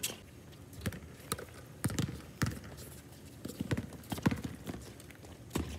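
Basketball bouncing on a hard outdoor court as a player dribbles, with sneaker footsteps; a run of sharp thuds at uneven spacing, roughly every half second.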